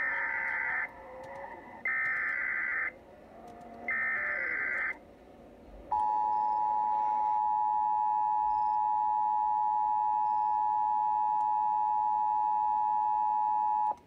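Emergency Alert System broadcast tones: three short bursts of screechy, warbling digital data, the SAME header that starts an alert. Then, about six seconds in, the steady two-tone EAS attention signal sounds and holds for about eight seconds, heralding a severe thunderstorm warning.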